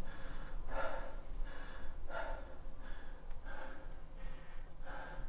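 A man breathing hard through an open mouth: quick, gasping breaths about one every 0.7 seconds, easing slightly toward the end.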